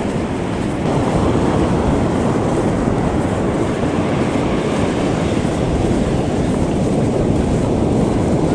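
Steady rumble of surf breaking along a sandy beach, mixed with wind buffeting the microphone.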